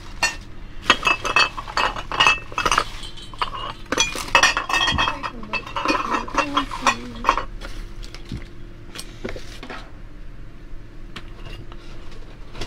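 Hard junk being rummaged through in a dumpster: objects clink and clatter against each other, busily for about the first seven seconds, then in sparser knocks.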